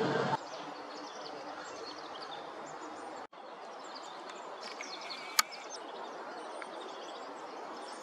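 Outdoor ambience: a steady background hiss with many faint, short, high chirps, and one sharp click a little past the middle. The sound drops out for an instant a little over three seconds in.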